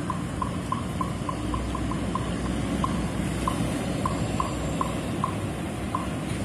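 Steady street traffic noise, with a Mercedes-Benz 1626 coach's diesel engine running as the coach pulls out slowly. A series of short high peeps sounds through it at an uneven pace, quickest in the first couple of seconds and sparser later.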